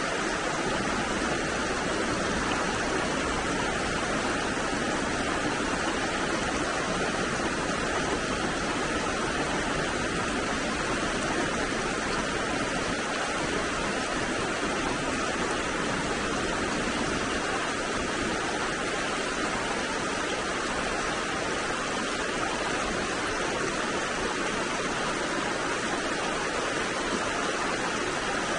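The Virgin River running shallow over rocks and small riffles: a steady rush of water.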